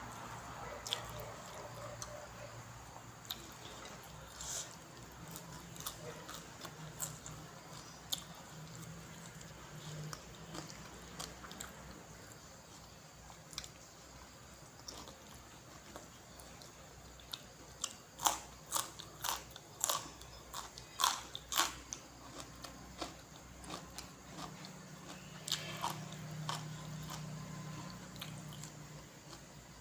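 A person chewing and biting spicy grilled-pork salad close to the microphone: wet chewing with scattered short crunchy clicks, and a run of louder, quicker bites about two-thirds of the way through.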